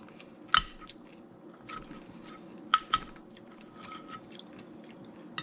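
Close-up chewing of a mouthful of berries and pomegranate seeds in coconut water, with a few sharp clinks of a spoon against the bowl, the loudest about half a second in and twice near three seconds in.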